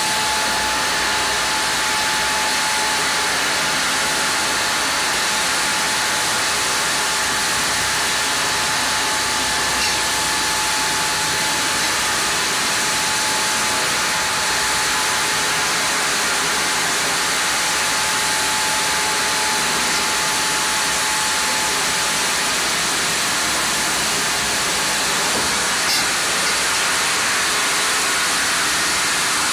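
Sawmill band saw headrig cutting a log of Japanese kalapanax (sen): a steady, dense hiss of the blade running through the wood, with a thin steady whine that fades out about twenty seconds in.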